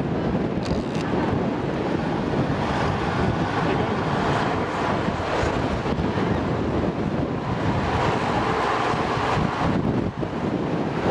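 Wind rushing over the microphone on the open top deck of a moving bus, with the bus engine running underneath.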